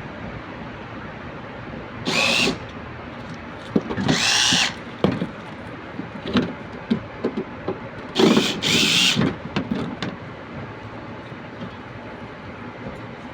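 Power drill or screwdriver running in three short bursts, its motor whine rising as it spins up, with small clicks and knocks of handling between bursts, typical of backing screws out while opening a window air conditioner's casing.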